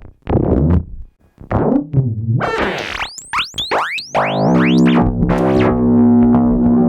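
Pittsburgh Modular Voltage Lab 2 synthesizer playing short plucky notes, then a burst of fast swooping pitch chirps, then a held buzzy drone from about four and a half seconds in.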